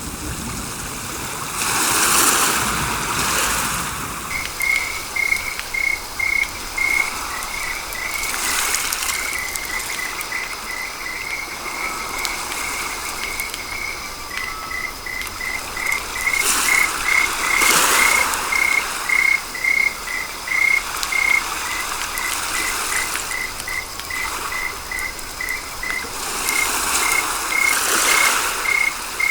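Rhythmic high-pitched chirping, about three short chirps a second at one steady pitch, starting a few seconds in, over a rushing noise that swells and fades every eight or nine seconds.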